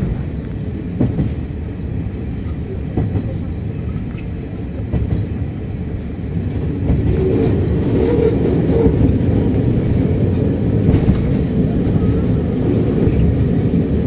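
Cabin noise of a KiHa 52 diesel railcar under way: a steady rumble from the diesel engine and the wheels on the rails, with a few sharp clicks from the track early on. The running noise grows louder about seven seconds in.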